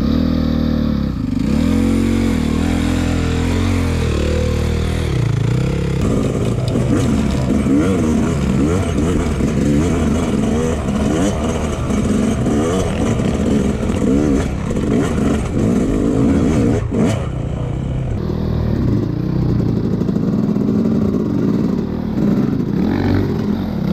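Dirt bike engine being ridden along a trail, its pitch rising and falling with the throttle, steadier for the first few seconds and then swinging up and down quickly. A single sharp knock about seventeen seconds in.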